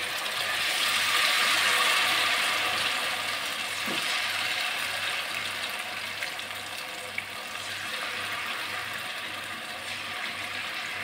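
Hot oil sizzling and crackling hard around sesame-battered cassava pieces that have just gone into a wok to deep-fry. It swells over the first couple of seconds, then eases off slowly, with a few faint pops.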